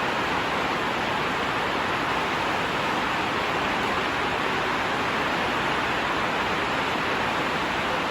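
Steady, even hiss of heavy rain, a rain sound effect covering the whole soundtrack.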